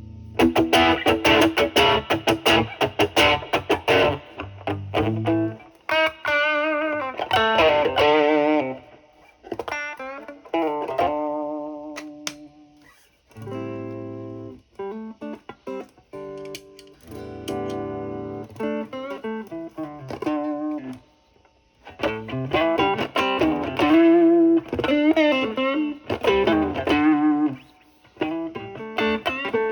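Overdriven electric guitar, a Stratocaster played through an MXR Duke of Tone overdrive pedal into a Marshall Valvestate's drive channel. It opens with fast strummed chords, then moves to single-note lead phrases with string bends and vibrato, broken by short gaps and a few ringing chords.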